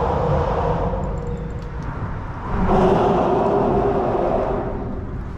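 Road traffic crossing the bridge overhead, heard from underneath: a steady low rumble with the humming drone of passing vehicles. A louder pass swells up about two and a half seconds in and fades out near the end.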